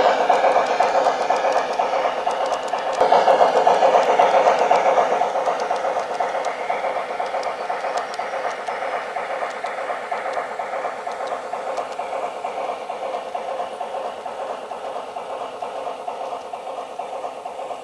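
Garden-scale model HSB steam locomotive train running on its track, a steady rattling of wheels and running gear. It grows louder about three seconds in, then fades steadily as the train draws away.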